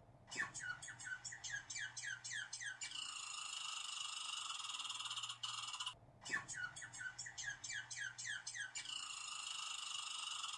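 Squirrel calling: a quick series of short falling chirps, about four a second, over a steady high buzz that then runs on alone for about three seconds. After a brief break about six seconds in, the same sequence starts over.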